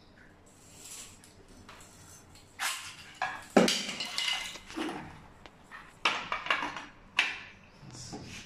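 Chrome shower fittings being handled against a tiled wall: a series of sharp metallic clinks and knocks, starting about two and a half seconds in.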